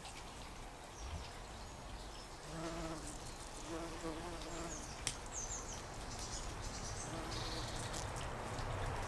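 A bumblebee buzzing as it flies around and forages on lupin flowers, its low hum fading in and out several times as it comes and goes.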